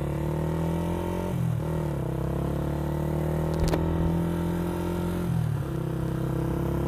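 Motorcycle engine running steadily under way, its note dipping briefly twice, about a second and a half in and again near five and a half seconds, then settling back. A single sharp click comes about midway.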